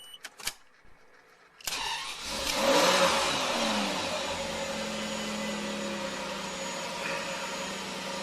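Ferrari 512 TR flat-12 engine. After a few faint clicks it starts abruptly about two seconds in, revs up briefly, then settles into a steady idle.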